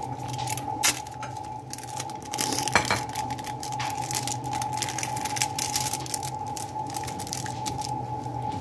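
Clear plastic wrapper of processed cheese slices crinkling and crackling as slices are peeled out of it, with a couple of sharper crackles about one and three seconds in, over a steady hum.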